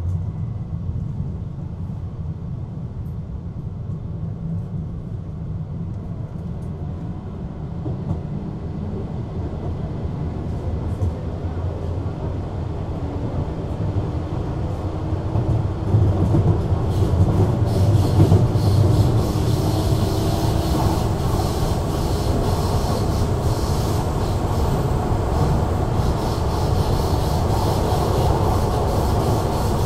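Duewag B80C light-rail car running on the rails: a steady low rumble builds up over the first half while it gathers speed. From about halfway a faint whine rises in pitch as it accelerates, and rail noise and hiss grow stronger toward the end.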